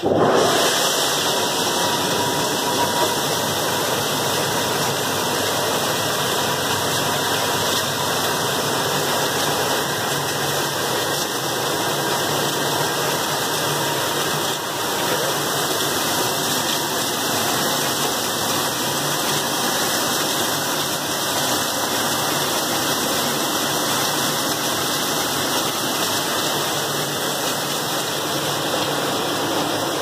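2005 Hobart CNA-S conveyor dishwasher running: a loud, steady rush of water spraying inside the wash chamber along with the machine's running noise. It sets in suddenly at the start.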